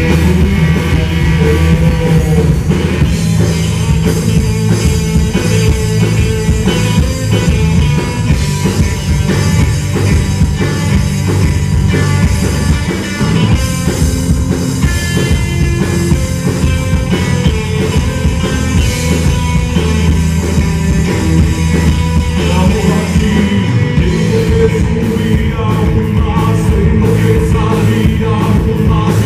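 Live rock band playing: electric guitar, bass guitar and drum kit, with a man singing. The drum beats stand out more sharply toward the end.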